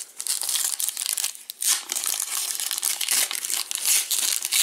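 Foil wrapper of a Panini Prizm trading card pack being torn open and peeled apart by hand: a dense run of crinkling, crackling rustles, with a short lull about a second and a half in.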